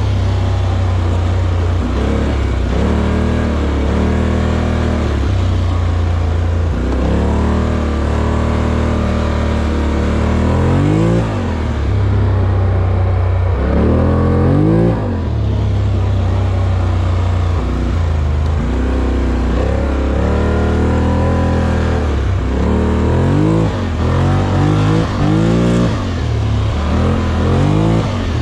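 Off-road vehicle engine running under throttle, its pitch climbing and dropping again and again as it revs up and eases off, over a steady low drone.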